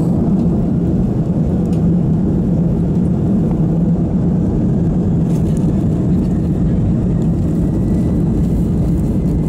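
Inside the cabin of an Airbus A319 on the ground, the steady low hum of its CFM56 engines running with no spool-up.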